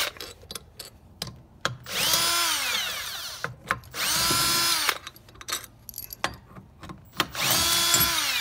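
Cordless drill-driver with an 11 mm (7/16-inch) socket backing out the end-cover bolts of a Gast rotary vane pump: three short runs of the motor, about two, four and seven and a half seconds in, each whining up to speed and winding down. Small clicks between the runs.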